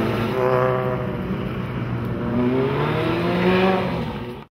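Racing car engine running hard, its pitch climbing as it revs up from about two and a half seconds in, then fading out quickly at the very end.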